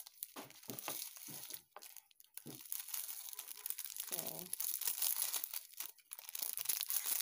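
Clear plastic packet crinkling and rustling in the hands as it is opened, in quick, irregular crackles.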